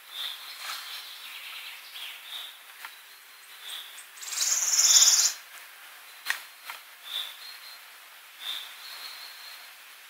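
Forest birds calling: a short high call repeated about once a second, and a loud, very high, rapid trill about four to five seconds in. A few sharp clicks, one about six seconds in.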